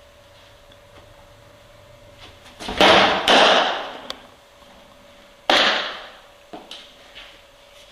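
A pitched softball (a riseball) smacking into a catcher's mitt about three seconds in, loud and echoing off the walls of a small indoor room. A second sharp smack of ball into leather follows about two and a half seconds later, with a few light clicks after it.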